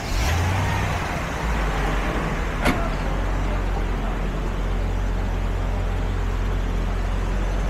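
Street traffic, with a motor vehicle's engine running steadily at a low hum. A single sharp click comes a little under three seconds in.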